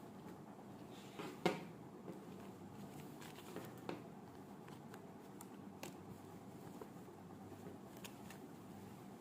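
Faint handling noises from unboxing: a few light knocks and clicks with soft rustling, the loudest knock about a second and a half in.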